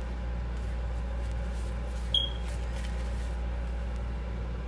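A single short, high electronic beep about two seconds in, over a steady low electrical hum.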